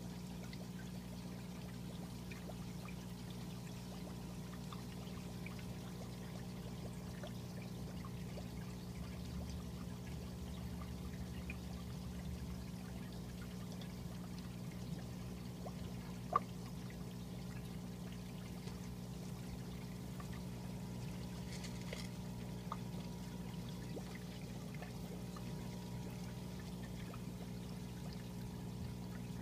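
Aquarium water steadily pouring and trickling, as from a filter's return flow, over a steady low hum. A single sharp click about 16 seconds in.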